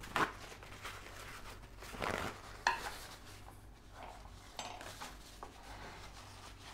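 Kitchenware clinking and knocking against a china plate while stew is being served: a few sharp clinks, the loudest about a quarter second in and just under three seconds in, with a short scrape between them.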